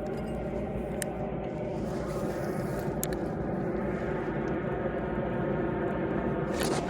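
Steady engine drone with an even, unchanging hum, and a couple of short clicks. Near the end, a burst of high-pitched rattling clicks starts up.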